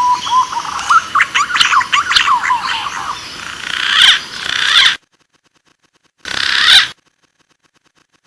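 Green pigeon (punai) calls: gliding whistled notes near the start, then a quick flurry of rising chirps, then harsh raspy bursts. The sound cuts off abruptly into dead silence about five seconds in, and one short raspy burst follows.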